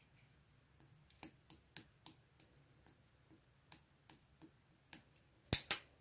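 A string of about a dozen sharp clicks or taps at an irregular pace, ending with two louder ones in quick succession near the end.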